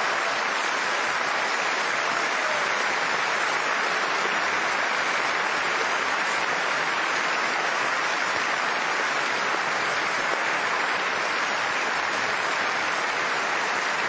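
A large audience applauding, a dense, steady ovation.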